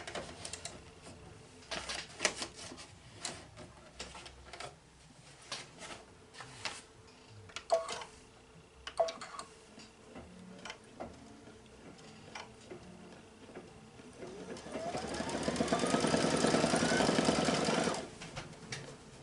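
Brother Luminaire embroidery machine: scattered clicks and knocks as the embroidery hoop is handled and fitted, then near the end the machine runs for about three seconds with a rising whir and stops abruptly.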